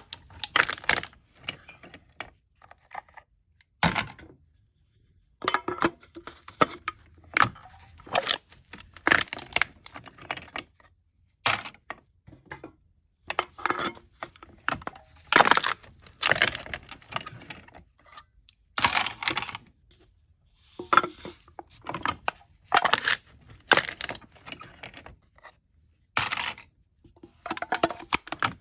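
Aluminium cans being crushed: crisp metallic crackling and crinkling in irregular bursts of a second or so, with short pauses between them.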